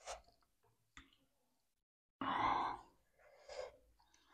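A woman's breathy sighs and exhales, a short puff at the start, a longer one about two seconds in and a short one near the end, the kind of breathing out that comes with very spicy food. A faint click about a second in.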